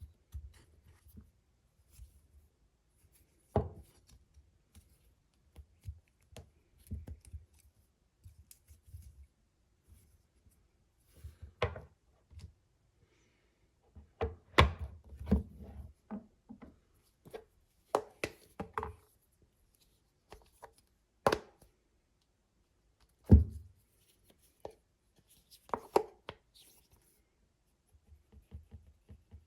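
Unboxing handling noises: irregular clicks, taps and knocks, with some rustling, as the packaging and a magnetic phone holder are handled, with about five louder knocks spread through.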